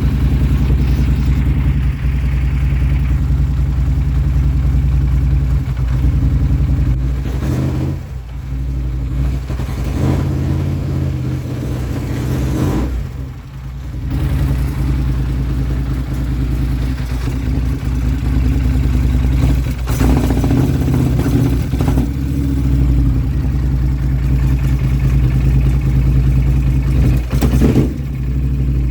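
2016 Polaris Sportsman 850 ATV engine running very roughly, its speed sagging badly twice as if about to die, with sharp pops here and there from backfiring through the intake. The rough running and lack of power come from a failing Bosch fuel pump starving the engine.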